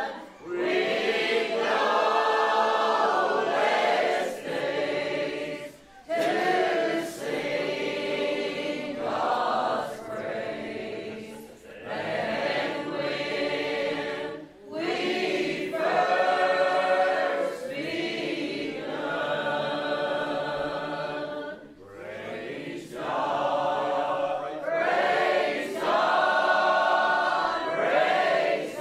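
A church congregation singing a worship song together, many voices in sung phrases with short breaks between them.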